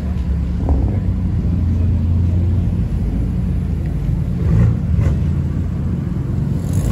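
BMW M3 and M4 with twin-turbo inline-six engines rolling slowly past one after the other, their exhausts giving a steady deep rumble. A few brief sharp clicks are heard over it.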